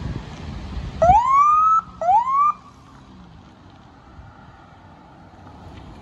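Police SUV's electronic siren giving two short chirps about a second apart, each a quick upward sweep in pitch, the second one shorter. Low engine and traffic noise runs underneath.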